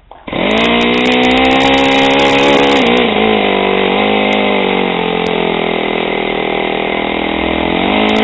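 Saito FA-56 four-stroke glow model-airplane engine catching on a hand flip of the propeller just after the start and then running steadily. Its speed sags around three seconds in and picks up again near the end.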